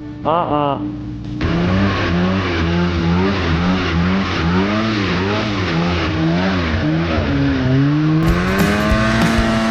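Polaris RMK 700 two-stroke snowmobile engine revving up and down under repeated throttle while riding through deep powder. Near the end it accelerates and holds a higher steady rev.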